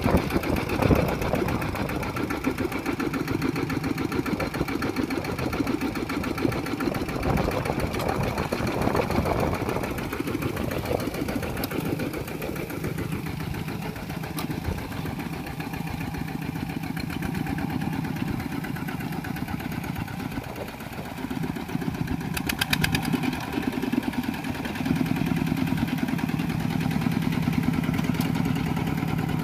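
Kubota RT120 walk-behind tractor's single-cylinder diesel engine running steadily, a little louder over the last few seconds.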